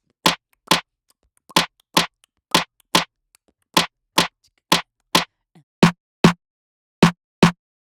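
Synthesized snare drum hits from the Backbone drum re-synthesizer, played in short pairs about a second apart, each hit short and dry with no ringing tail. The later hits, from about six seconds in, have a fuller, deeper body.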